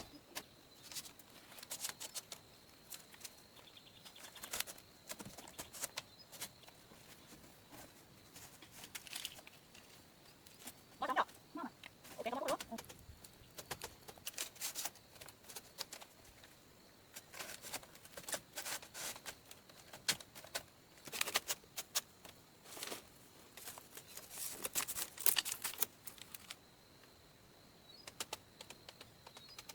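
Irregular sharp clicks and knocks, with a couple of short bird calls about eleven and twelve seconds in.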